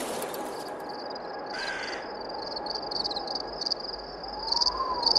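A crow gives a harsh caw about one and a half seconds in, over a steady, pulsing high trill of insects. A faint rising-then-falling call sounds near the end.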